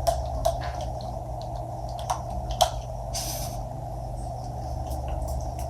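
A Victoria's Secret Bare Vanilla perfume bottle being handled and sprayed: a few light clicks and taps, then one short hissing spray of mist about three seconds in, over a steady hum.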